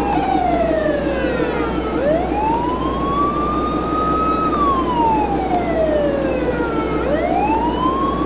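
Boat siren wailing, sliding slowly down in pitch, rising again about two seconds in, holding, then falling and rising once more near the end, over a steady rumble.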